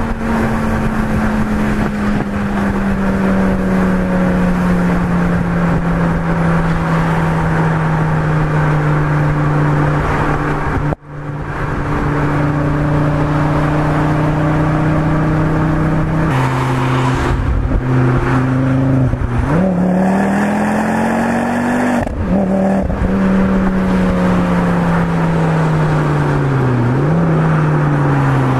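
Stage 4 tuned Ford Focus RS with a BullX exhaust, its turbocharged engine and exhaust heard on board at speed over a steady rush of road noise. The engine note sinks slowly as the car eases off, cuts out for a moment about eleven seconds in, then climbs sharply under acceleration, breaks at a gear change, and falls away again.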